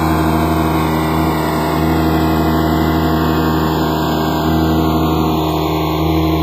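Tractor engine running steadily at a constant speed, loud and even.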